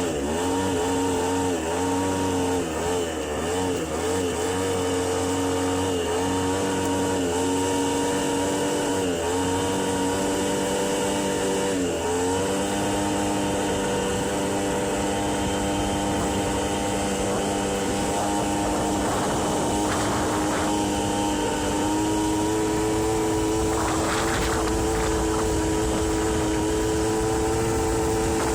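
Aprilia Ditech scooter's 50cc Morini two-stroke engine running under way on a test ride. Its pitch wavers and dips with the throttle at first, then holds steady and steps up a little about three quarters of the way through, with road and wind rumble underneath.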